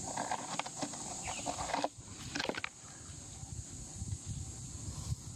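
Rustling and light scratchy handling noise for about the first two seconds as hands work around a plastic tub on gravel, then a few sharp clicks, over a steady high-pitched background hiss.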